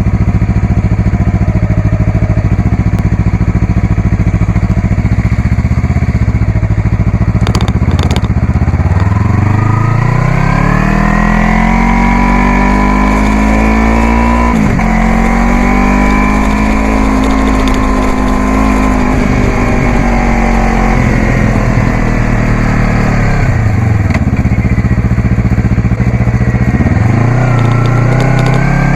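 Yamaha YZF-R3's parallel-twin engine through a Coffman's aftermarket exhaust. The engine holds a steady note, then revs climb under acceleration. A sudden brief cut about halfway through fits a quickshifter upshift. Later the revs fall away and climb again near the end.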